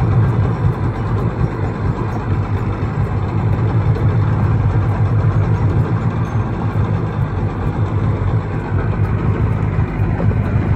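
Sea-Doo personal watercraft engine running steadily while cruising, a constant low drone with a hiss of water and wind over it.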